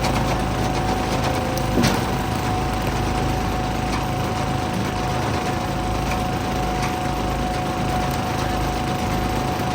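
Small gasoline engine running steadily at one constant speed, without revving. A single sharp knock sounds about two seconds in.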